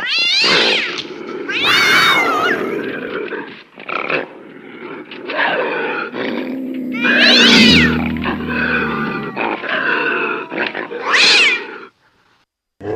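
Cactus cat creature voice built from lynx, bobcat, cougar and domestic cat recordings: a string of loud cat calls whose pitch sweeps up and down, with a deep growl under a high screech about seven to eight seconds in. It cuts off about a second before the end.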